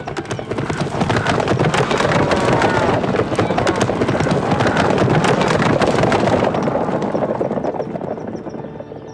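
Sound effect for a huge swarm of butterflies: a dense rush of rapid clattering that builds over the first second, holds, and fades away over the last two seconds.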